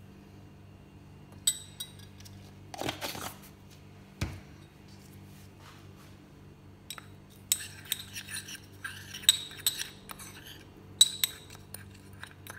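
Metal teaspoon clinking and scraping against a small ceramic ramekin as ground spices are spooned in and stirred together. There are a few separate taps in the first seconds, then a run of quick clinks from about seven seconds in, over a faint steady hum.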